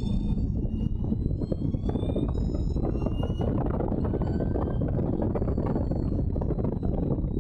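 Allard J2's V8 engine under racing load, heard from the open cockpit over heavy wind rush. The engine note climbs steadily over the first few seconds as the car accelerates out of a corner, then holds.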